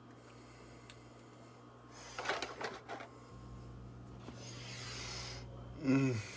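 Rustling and handling noise about two seconds in, then a steady hiss, and near the end a short hum from the person that slides down in pitch.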